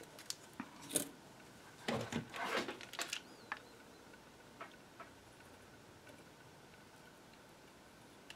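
Small hand-tool and wire handling sounds at a workbench: a cluster of short clicks and rustles in the first three and a half seconds, then a few faint ticks.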